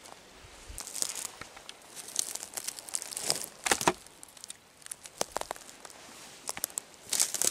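Irregular crackling and rustling of dry twigs, leaves and brush as a person moves through forest undergrowth, coming in short clusters of snaps a second or two apart.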